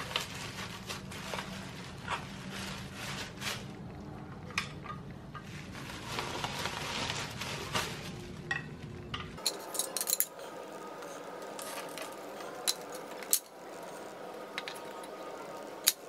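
Scattered light clicks and clinks of small hard objects being handled, over a low hum that stops abruptly about nine seconds in.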